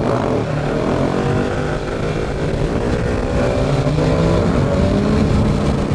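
KTM 690 SMC R single-cylinder supermoto engine running under way, its note climbing gradually as it accelerates, with a brief change in pitch about four seconds in. Wind rumble on the helmet-mounted microphone runs underneath.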